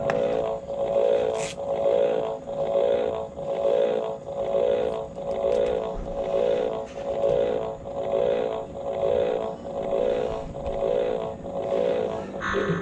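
Toy lie-detector shock machine playing its electronic warbling tone, pulsing evenly about once every three-quarters of a second while a hand rests on its sensor. Near the end the pulsing stops and a short, higher tone sounds.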